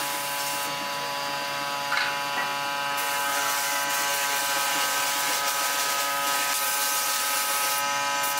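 Compressed-air spray gun hissing as it sprays finish onto wood, over a steady mechanical hum. The hiss thins for a couple of seconds about a second in, then picks up again.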